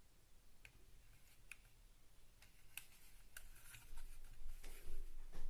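Faint, scattered light clicks and handling noise from a spring-powered airsoft pistol replica, an Umarex Walther P22, being turned over in the hands. There are about half a dozen separate clicks, and the handling noise grows busier near the end.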